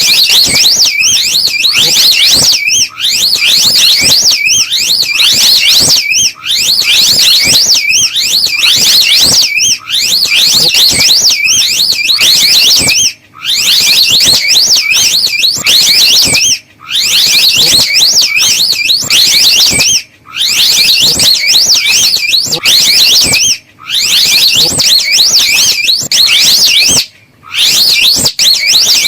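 Slow loris call recording, played loud: a rapid, high-pitched warbling trill repeated in phrases about three and a half seconds long, with short breaks between them.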